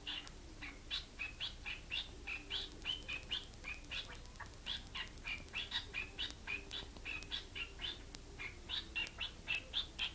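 Pet bird singing: a fast, continuous run of short high chirps, several a second.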